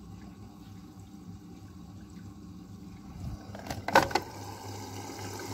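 Old Samsung front-loading washing machine filling with water while the drum slowly turns the sneakers inside: water sloshing over a steady low hum. A sharp knock about four seconds in.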